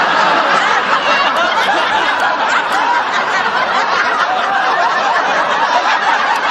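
Studio audience laughing, many voices at once, steady throughout.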